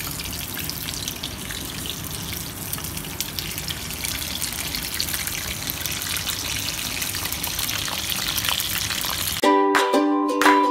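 Chicken lollipops deep-frying in hot oil in a kadai, a steady sizzle. About nine and a half seconds in the sizzle cuts off and plucked-string background music starts.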